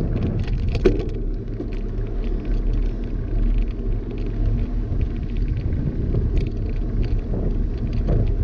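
Wind buffeting the microphone of a GoPro Hero 6 action camera on a moving bicycle, mixed with the steady noise of knobby tyres on asphalt. Scattered light ticks and rattles from the bike run through it, one a little sharper about a second in.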